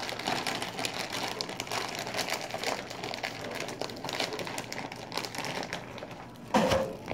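Thin plastic piping bag of candy-kit cream crinkling and crackling as it is handled and squeezed, with many small crackles throughout. A brief, louder bump comes near the end.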